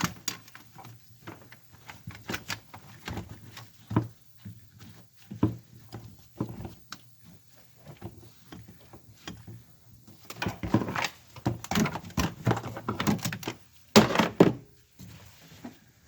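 Irregular clinks, clicks and knocks of hand tools and metal parts being handled while working on a fuel filter, coming thicker and louder in the last third.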